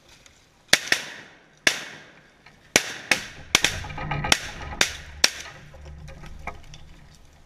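A string of shotgun shots: about nine sharp cracks in under five seconds, the last three evenly spaced about half a second apart.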